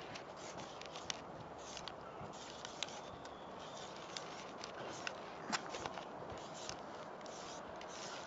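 Tip of a Molotow Speedflow paint marker scratching across rough granite as a tag is written, with a few sharp clicks over a steady background hiss.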